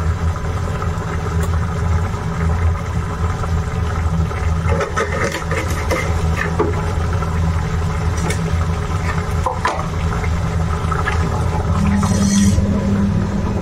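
A steady low mechanical hum over a pan of masala gravy cooking on a high gas flame, with a few light clicks as kokum pieces go in and utensils are handled. Near the end a spatula stirs and scrapes the steel pan.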